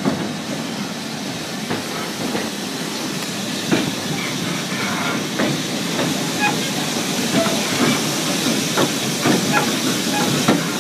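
Narrow-gauge (2 ft 6 in) steam train: a steady hiss and rumble with scattered clicks and knocks, getting a little louder and busier in the second half.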